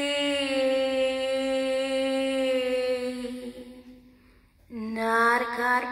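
A woman's voice chanting a long, steadily held note of 'light language' into a handheld microphone. The note fades out a little before four seconds in, and after a short breath she begins a second held note, slightly lower in pitch.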